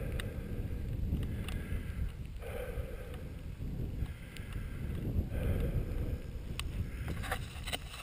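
Wind buffeting the microphone of a camera riding on a bicycle climbing a paved mountain road: a steady low rumble with a few faint clicks.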